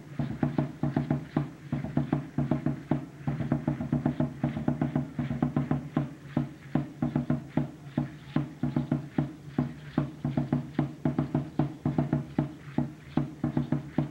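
Aztec dance drumming on huehuetl drums: a fast, even beat of deep drum strokes that keeps going without a break.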